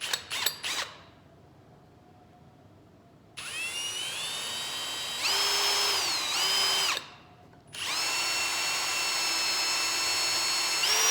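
Power drill boring a pilot hole for a screw into mahogany. After a few clicks, the motor whines for about three and a half seconds, speeding up partway through, stops briefly, then runs again for about three and a half seconds more, speeding up once more near the end.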